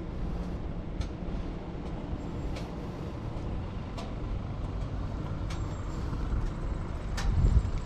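Toyota GR Supra 3.0 turbo's inline-six engine running steadily with a knocking: sharp, irregular clicks about every one to two seconds over the low engine rumble.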